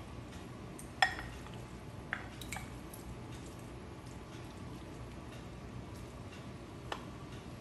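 A few sharp clinks and knocks as a wooden spatula and a glass bowl knock against a nonstick wok while raw beef is scraped into it. The loudest clink, about a second in, rings briefly, and smaller knocks come near two seconds and again near the end, over a steady low background noise.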